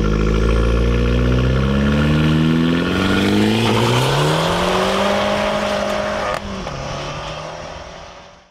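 Car engine revving: the engine note holds, climbs steadily in pitch, then drops suddenly about six seconds in and fades away.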